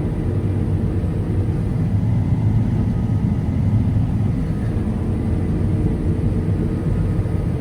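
Combine harvester running steadily while harvesting wheat: a continuous low engine and machinery drone with a few steady hum tones, heard from inside the cab.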